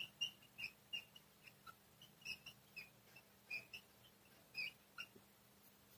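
Whiteboard marker squeaking faintly on the board in a string of short, irregular squeaks as words are written.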